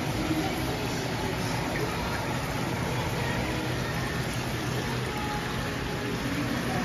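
Water pouring steadily from an inflow pipe and splashing into a display tank, an even rushing hiss, with a low steady hum underneath.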